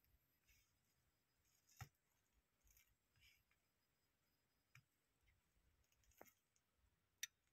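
A few faint, separate sharp clicks in near silence: clicks on the laptop as the diagnostic program's buttons are pressed, and near the end the relay inside the OpCom clone interface clicking as its interface test starts.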